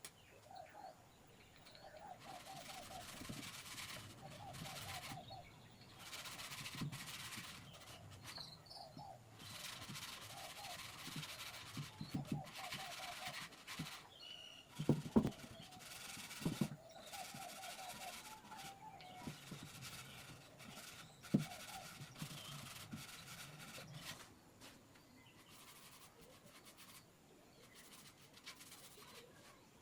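Faint bird chirps and short repeated trills, with a few soft knocks around the middle.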